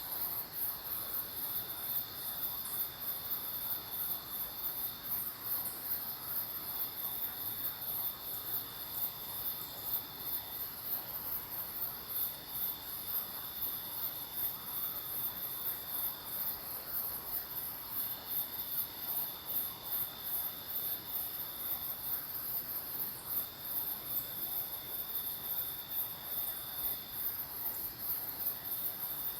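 Night insects calling: a dense, very high, fast-pulsing chorus, with a lower steady trill that comes in bouts of a few seconds separated by short breaks.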